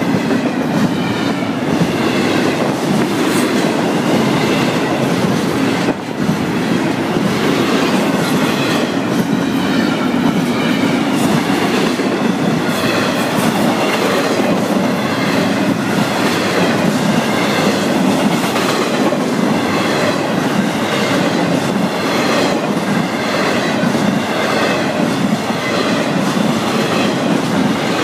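Double-stack intermodal freight train passing close by at steady speed: a continuous rumble of rolling wheels, with their clickety-clack over the rail joints and a wavering high wheel squeal that comes and goes.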